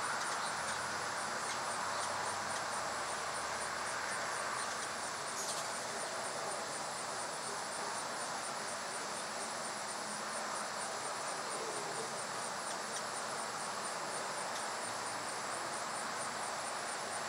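Insects, crickets or katydids, singing in a steady high-pitched pulsing chorus, over a constant background hiss.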